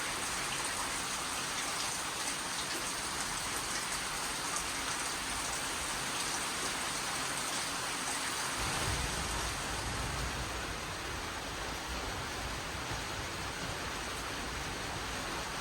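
Steady rain falling, an even hiss of drops, with a low rumble coming in a little past halfway.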